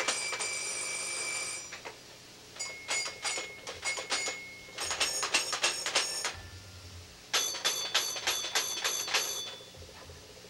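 A child's musical toy with bell-like chimes, struck in quick runs of about five strikes a second with short pauses between the runs, the bright tones ringing on between strikes. A soft low bump comes about halfway through.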